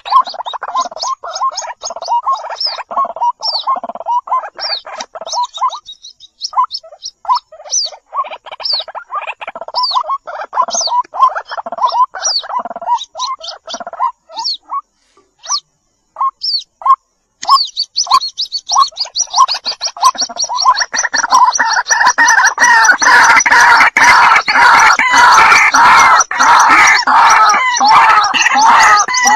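White-breasted waterhen chicks calling: rapid strings of short, high chirps over lower notes. The calling thins out briefly about six seconds in and again in the middle, then thickens into a dense, louder stretch from about twenty seconds on.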